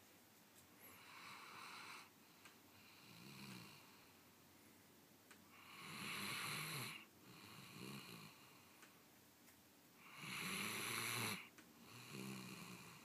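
German Shorthaired Pointer snoring in its sleep: a rasping snore with each breath, the two loudest about six and ten seconds in, each followed by a softer breath.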